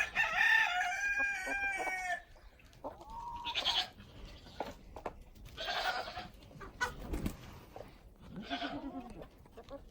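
A rooster crows once, a loud call of about two seconds with several pitched syllables, followed by scattered shorter calls from the chickens and goats around it.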